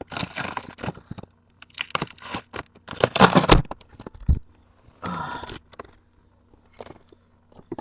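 Cardboard shipping box being torn open by hand, in four rough bursts of tearing and scraping with small clicks between, the loudest about three seconds in.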